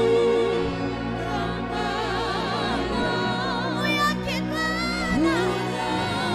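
Gospel song: a solo voice sings long held notes with wide vibrato over steady backing music.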